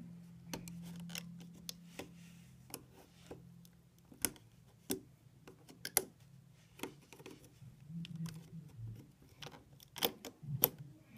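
Irregular light clicks and ticks of a metal hook working rubber loom bands off the plastic pegs of a Rainbow Loom, lifting the finished piece off the loom.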